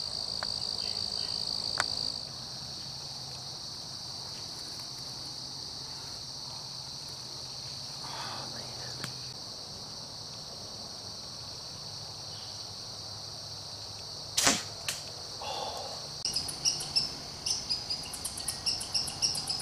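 Steady high-pitched drone of insects, with a single sharp crack about two-thirds of the way through and a run of short, quick chirps over the last few seconds.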